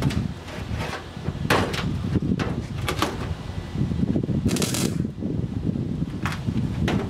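Handheld angle grinder working against rusty steel, the disc chattering and scraping with a rough, rattling sound, and several sharper scrapes along the way.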